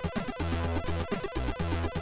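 Commodore 64 SID chip music from a demo: a chiptune with a repeating bass pattern and sharp noise-channel drum hits on a quick, steady beat.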